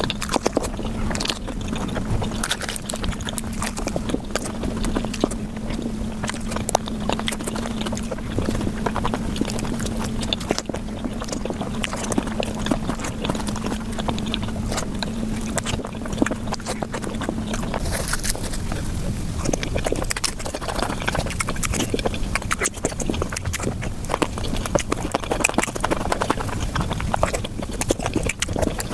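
Eating and chewing sounds played back at five times normal speed: a dense, rapid run of wet clicks and smacks. A steady low hum runs under it and stops about two-thirds of the way through.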